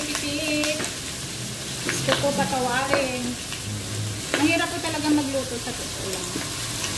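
Pork belly slices frying in oil in a nonstick wok, with a steady sizzle and a few clicks of metal tongs against the pan as the pieces are turned. Snatches of a voice come and go in the background.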